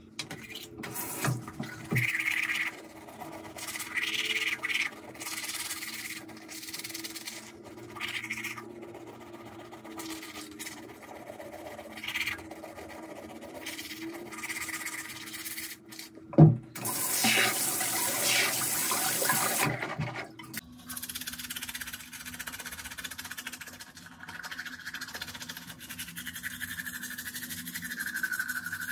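Teeth being brushed with a manual toothbrush and toothpaste: irregular wet, foamy scrubbing strokes of bristles against teeth. About 16 seconds in there is a sharp knock, followed by a louder rushing, hissing noise for about four seconds.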